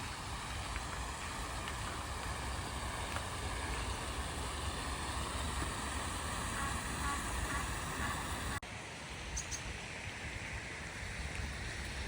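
Steady outdoor background noise, a low rumble with hiss above it and no clear single source. About eight and a half seconds in it switches abruptly to a slightly quieter, thinner noise.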